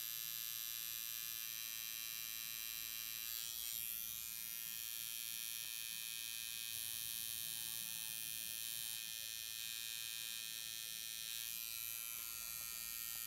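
Tattoo machine buzzing steadily as the needle works ink into the skin of a forearm.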